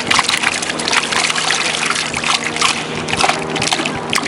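Water splashing and trickling in a continuous crackling wash, with a low steady hum underneath.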